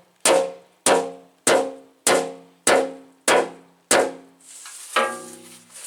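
Sledge hammer pounding a dented steel truck fender: a steady run of hard blows, about one every 0.6 seconds, each leaving the sheet metal ringing. Near the end a brief hiss comes in before a last blow with a lower ring.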